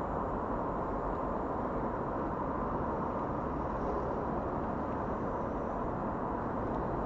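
Steady low outdoor background noise, even throughout, with no distinct calls, knocks or other separate sounds standing out.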